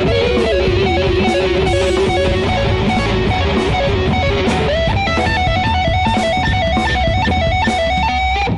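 Instrumental music led by electric guitar over drums and bass; the melody moves up in pitch about five seconds in, and the music cuts off right at the end, leaving a fading ring.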